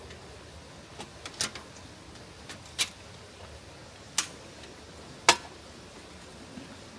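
A handful of sharp clicks and knocks at irregular intervals, the loudest about five seconds in, over a faint steady hiss.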